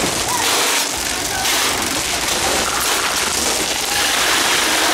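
Dense, rapid, rain-like patter of airsoft gunfire and BBs striking, steady throughout, with faint distant shouting.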